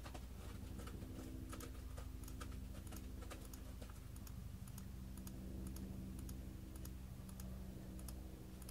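Light, irregular clicking of computer controls as pages of a document are flipped through, over a steady low hum.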